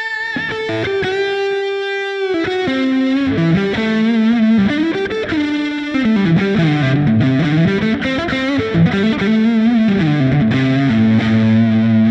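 Distorted electric guitar, a '62 Relic Stratocaster with vintage pickups, played through the Blue Cat Destructor amp-modelling plugin with a little added reverb and delay. It plays a lead line: long held notes, then phrases with string bends and vibrato, ending on a held low note.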